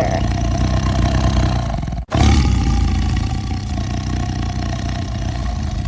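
Tiger roaring: a long, loud roar that breaks off briefly about two seconds in, then a second roar that starts loud and cuts off abruptly.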